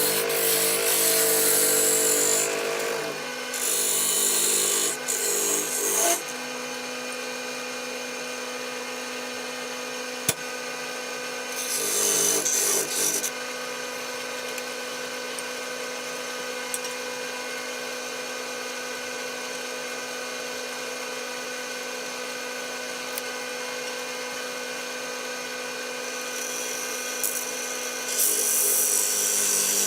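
Wood lathe running with a steady motor hum, with four spells of a tool working the spinning walnut blank: near the start, a few seconds in, around the middle, and near the end. Between the spells only the lathe's hum is heard, and there is a single sharp click about ten seconds in.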